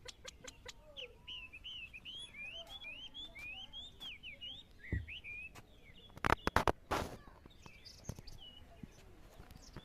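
A songbird singing a fast run of high notes that rise and fall, for about four seconds, followed about six seconds in by a short cluster of loud clicks or knocks.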